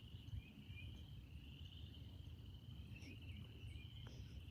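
Faint, steady high-pitched trill of insects over a low background rumble.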